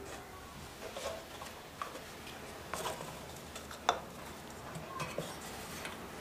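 Scattered light metallic clicks and clinks of tools and small parts being handled during engine assembly, with a sharper click about four seconds in.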